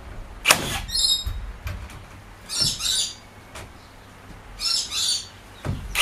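Battery metal connector nailer (HiKOKI NR3665DA) firing nails through a steel hurricane tie into timber: a sharp shot about half a second in and another near the end. Birds chirp in between.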